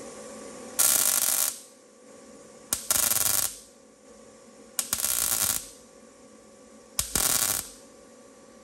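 MIG welder laying four short tack welds on the car's sheet-steel inner fender panel, each a crackling sizzle of under a second that starts with a sharp click, about two seconds apart.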